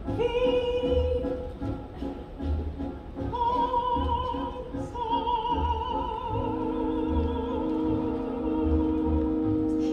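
Live stage-musical singing: a woman's voice holds long notes with vibrato, climbing to higher held notes about three seconds in, over a theatre orchestra with a pulsing low beat. From about six seconds, sustained low orchestral chords come in beneath the last held notes.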